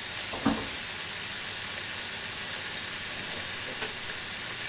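Sliced sweet peppers, carrots and onions sizzling steadily as they sauté in butter in a stainless steel pan, with a single light knock about half a second in.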